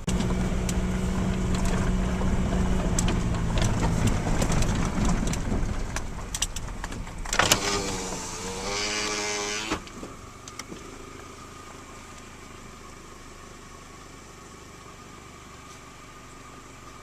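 Vehicle engine running steadily for the first half. A short wavering tone follows, then the sound drops to a quieter steady hum.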